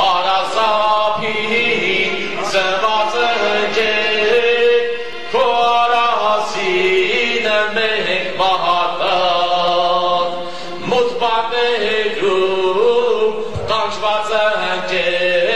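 A man's voice singing through a microphone in a slow, chant-like style, holding long notes and gliding between them in phrases a few seconds long.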